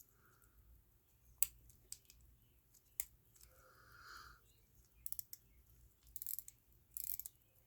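Small sharp clicks and a quick rattle of small tools and metal parts being handled at a workbench, with two short scratchy scrapes near the end.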